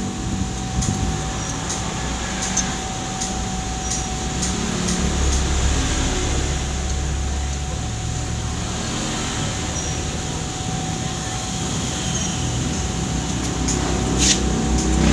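A motor running steadily: a low rumble with a constant hum above it, and scattered light clicks and taps, the sharpest near the end.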